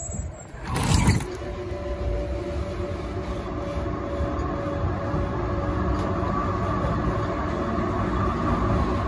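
A2-class Melbourne tram running along street track, heard from the front of the car: a steady rumble of wheels on the rails with a steady motor hum. A short loud burst of noise about a second in.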